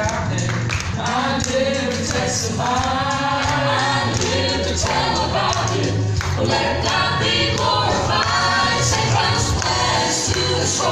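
Gospel vocal group of two women and two men singing a song in harmony into handheld microphones.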